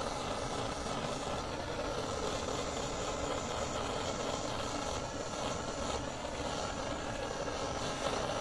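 Gas torch burning steadily, its flame heating a motorcycle exhaust muffler to give the metal a titanium-coloured heat tint.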